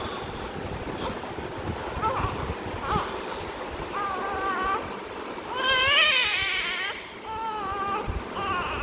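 Newborn baby fussing in short, high cries, the longest and loudest about six seconds in, over a steady hiss.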